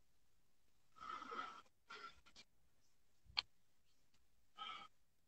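A man's breathy exhalations, three sighs, with one sharp click about three and a half seconds in.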